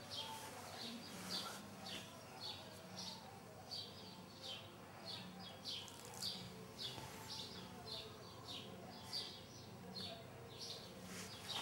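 A bird chirping over and over, short high chirps about twice a second, with a faint low hum underneath.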